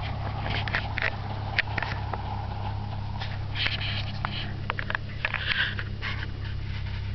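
Ford Thunderbird's 3.8-litre V6 running at idle with a rod knock: a steady low hum with irregular sharp clicks and short rattles on top.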